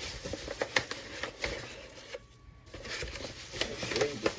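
Measuring cup scooping flour out of a flour bag: irregular scraping, rustling and small clicks, with a brief gap about halfway.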